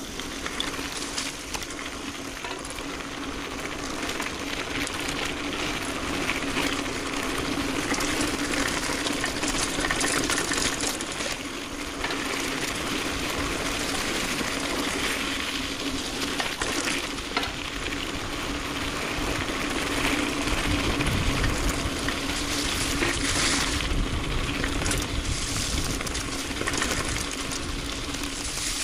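Mountain bike being ridden: a steady rush of tyre and wind noise with frequent rattles and clicks from the bike over rough ground, and a steady hum underneath.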